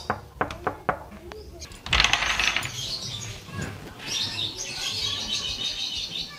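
Knuckles rapping on a wooden door, four quick knocks in the first second. About two seconds in comes a louder rough burst of noise, then a fainter high rustling.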